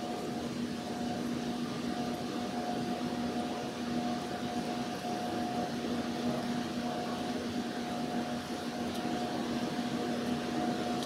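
Steady drone of the AIDAdiva cruise ship's machinery under way: an even rush with a constant hum of two steady tones.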